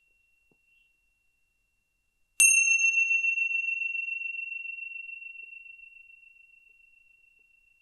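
A small meditation bell struck once about two and a half seconds in: one clear high ringing tone that fades away slowly over about five seconds. It marks the silent sitting of the breathing meditation.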